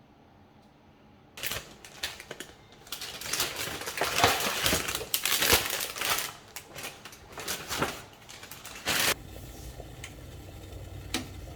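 Packaging being handled and crinkled by hand, in a string of rustling bursts that start about a second and a half in and die away after about nine seconds. A low steady hum and one short click follow near the end.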